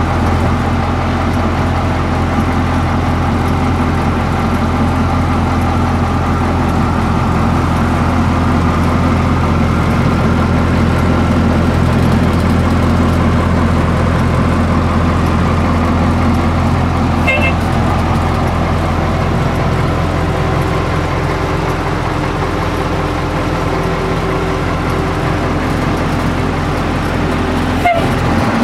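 Ford C-Series garbage truck engine idling steadily, heard from inside the cab as a constant low hum with no revving.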